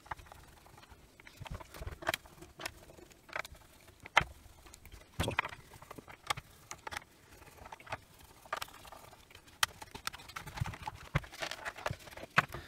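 Scattered clicks, taps and light knocks of a Milwaukee M12 radio charger's plastic housing being unscrewed and taken apart by hand, with small screws set down as they come out. The loudest knock comes about four seconds in.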